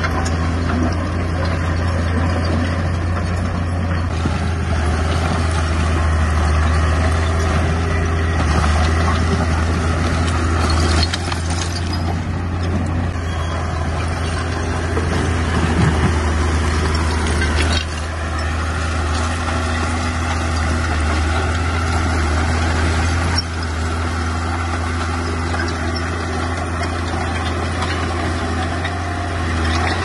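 Heavy diesel engine of a bulldozer working, a steady low drone with the clatter and noise of the machine over it. The engine note drops a step a few times as the load changes.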